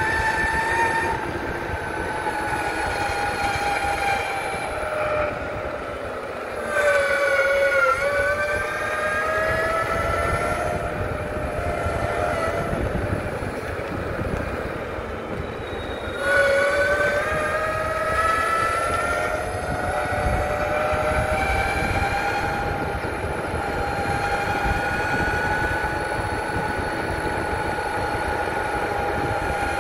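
Electric mountainboard's motors whining as it rides, over a steady rumble of tyres and wind. The whine drops in pitch and climbs again twice, about a quarter of the way in and again halfway, getting louder as the board speeds back up.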